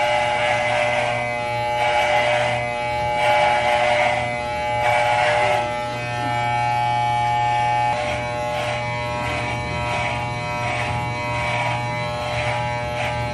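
Corded electric hair clippers buzzing steadily as they shave a head of short, thick hair, the sound swelling in a rasp roughly once a second as the blades are pushed through the hair.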